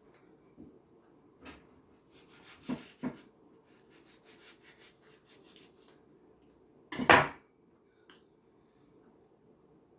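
A person eating: faint chewing and crackling, two small clicks of utensils or dishes about three seconds in, and one louder short noisy sound about seven seconds in.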